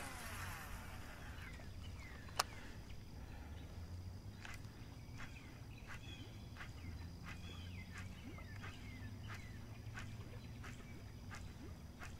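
A fishing cast: line hissing off the reel for about a second, then a single sharp click about two seconds in. After that come faint scattered ticks as the topwater popper is worked back, with small birds chirping throughout.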